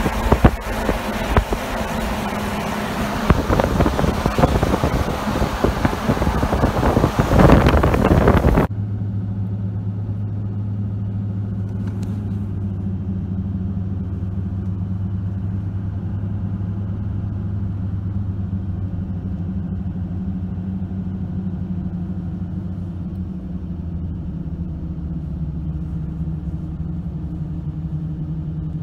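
Riding inside a moving vehicle: loud rushing wind and tyre noise with buffeting and jolts for about the first nine seconds. It then cuts suddenly to a steady low engine and road drone heard from inside the closed cab.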